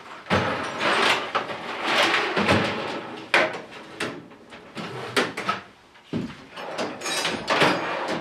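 Metal hand tools clattering and shifting in a series of irregular knocks and rattles as someone rummages through a cluttered workbench for a socket.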